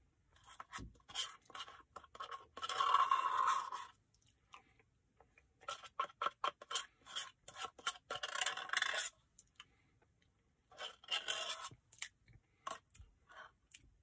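Plastic spoon scraping and stirring inside a paper ice-cream cup of thick Blizzard, in three spells of quick scrapes and clicks, each lasting a few seconds.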